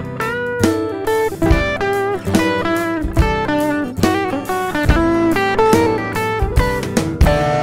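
Electric guitar playing a bluesy single-note line with note bends, with sharp percussive hits under it. It is heard through a tube-preamp emulation plugin (OmniTec-67A, modelled on the Altec 1567A) that adds saturation and harmonics.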